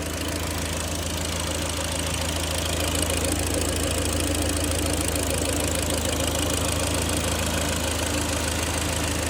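Freshly overhauled Kia Sportage 3 engine idling steadily, still running in after its capital rebuild.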